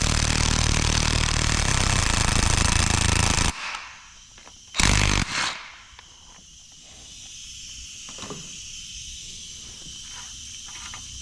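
Power tool running steadily for about three and a half seconds, then cutting off, with a short second burst about five seconds in, followed by quieter clicks and handling. It is driving the crank bolt against a collar to press the front wear sleeve onto the crankshaft nose of a Detroit Diesel 2-53.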